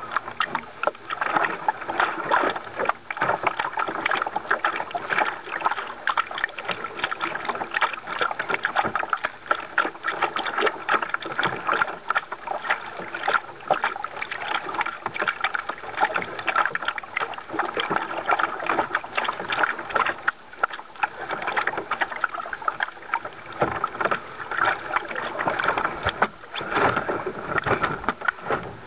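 Rushing whitewater of a class II rapid around an open canoe: a steady, dense splashing hiss made up of many small splashes.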